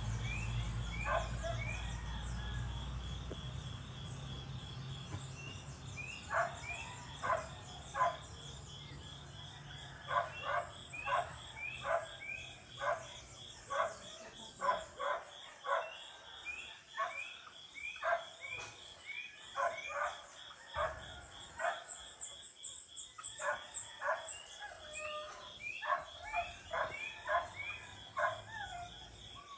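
A dog barking repeatedly, about two barks a second in long runs with brief pauses, over a steady high insect drone. A low rumble fades away in the first few seconds.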